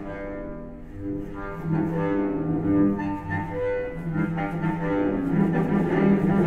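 Solo cello bowed, playing a phrase of short separate notes that grows steadily louder toward the end.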